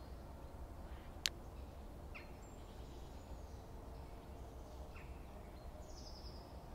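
Quiet outdoor ambience: a steady low rumble with a few faint, short bird chirps. About a second in comes a single sharp snap of a small dry twig broken in the hands.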